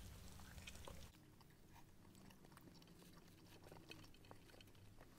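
Faint chewing of a mouthful of fried chicken: soft, irregular mouth clicks and ticks, a little louder in the first second, otherwise very quiet.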